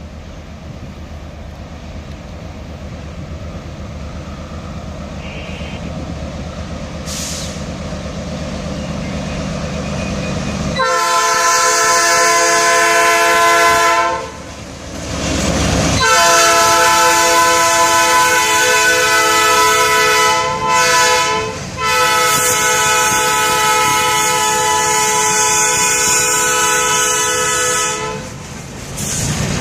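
Diesel switcher locomotive approaching with a growing rumble, then blowing its multi-note air horn for a grade crossing in the standard long, long, short, long pattern, the last blast held for about six seconds. Boxcars roll past near the end.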